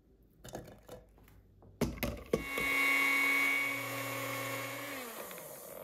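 Small personal bullet blender grinding garlic, ginger and green chillies: a few light clicks and knocks, then the motor runs with a steady whine for about two and a half seconds and winds down, its pitch falling near the end.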